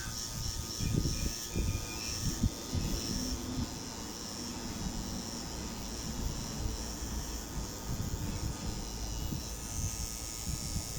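Electric tattoo machine running with a steady buzzing hum.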